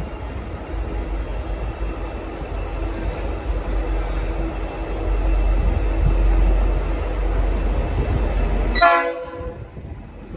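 V/Line N class diesel locomotive (EMD two-stroke V12) running under power as it departs, with its Nathan P5 multi-chime horn sounding. A brief loud horn blast about nine seconds in, after which the heavy engine rumble drops away.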